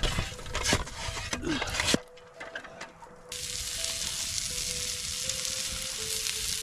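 Tomahawk steak frying over a campfire: a steady sizzle from about three seconds in, after a louder first two seconds of scraping with sharp knocks.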